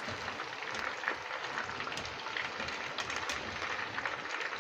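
Hot oil sizzling and crackling steadily around chicken pakoras deep-frying in a wok.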